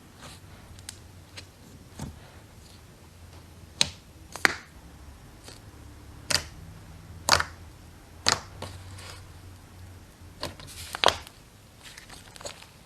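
Slime being mixed, giving sharp sticky clicks and pops at irregular intervals, some much louder than others.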